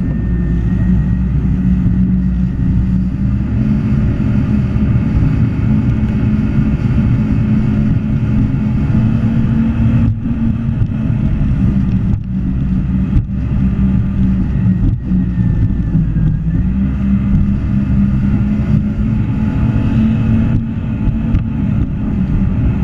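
Jet ski engine running steadily under way, a continuous drone with a few brief dips partway through.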